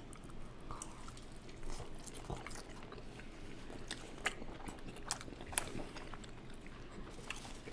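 Two people biting and chewing pepperoni pizza close to the microphones: scattered crunches of crust and wet mouth clicks, the sharpest a little over four and five and a half seconds in.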